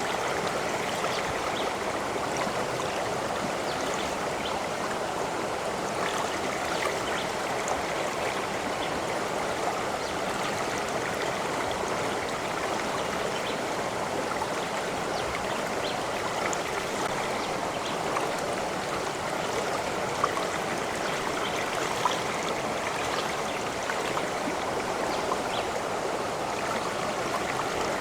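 Running water flowing steadily, a continuous babbling rush with small sharp splashes and drips scattered through it.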